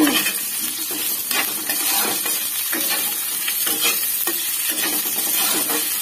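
Sliced potato and onion frying in hot oil, a steady sizzle, while a spatula stirs them and scrapes the pan in repeated strokes.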